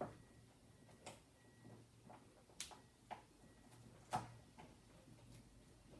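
Faint, irregular clicks and light taps, about six in all, the loudest about four seconds in. They come from a magnet being worked by hand along a plastic drain pipe, shifting a magnetic plunger inside it against a clog.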